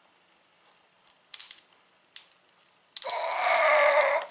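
Cured fibreglass laminate with a woven cloth layer cracking as it is bent by hand: a few sharp cracks, then about three seconds in a loud, crunching crackle lasting over a second as the fibres give way.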